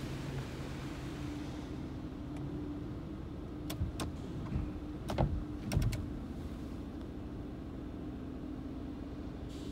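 Car windshield wipers sweeping foam off the glass, heard from inside the car: the wiper motor runs with several sharp clicks and knocks between about three and a half and six seconds in, over a steady low hum.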